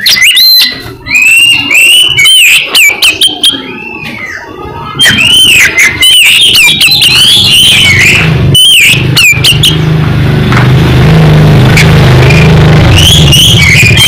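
Oriental magpie-robin (kacer) singing loud, rapid whistled phrases that rise and fall, breaking off about two-thirds of the way through and starting again near the end. From about halfway a vehicle engine runs close by as a steady low drone.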